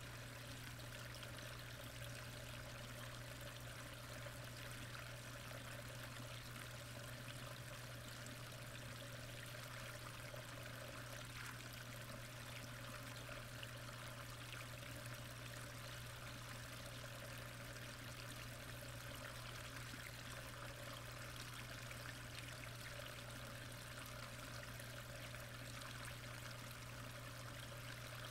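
Steady, faint rush of moving pond water heard underwater, with a steady low hum beneath it.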